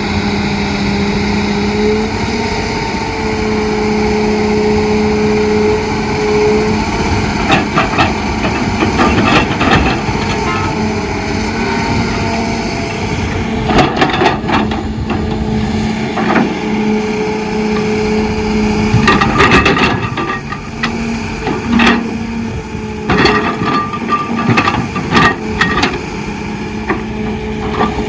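Excavator's diesel engine running steadily under load, with a string of clanks and knocks that grows busier in the second half.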